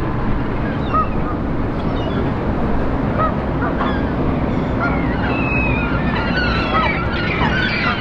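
Waterbirds calling by a lake, with geese honking among them; the calls are scattered at first and crowd together more densely in the second half, over a steady low background noise.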